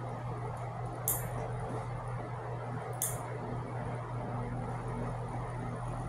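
Two sharp clicks about two seconds apart: a nail clipper snipping through a puppy's claws. A steady low hum sits underneath.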